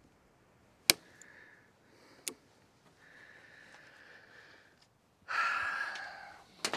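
Pneumatic stapler firing: a sharp crack about a second in and a lighter click a little past two seconds, with faint air hissing between. Near the end there is a loud rush of air lasting just over a second, followed by a couple of quick clicks.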